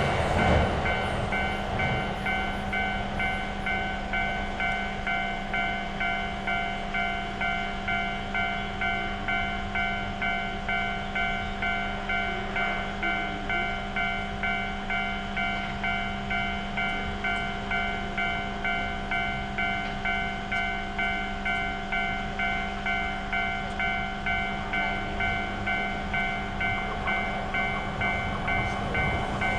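Japanese railroad crossing warning bell ringing continuously in evenly spaced strokes over a low, steady train rumble.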